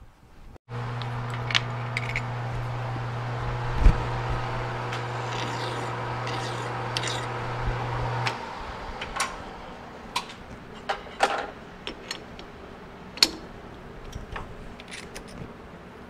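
A metal lathe's electric motor hums steadily, starting suddenly just under a second in and stopping at about eight seconds. After that come scattered sharp metal clicks and clinks as the lathe chuck and the small threaded rods are handled.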